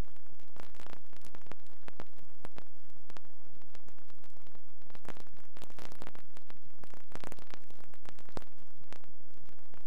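Steady static hiss with irregular crackles and clicks: background noise on the soundtrack of a silent film transfer.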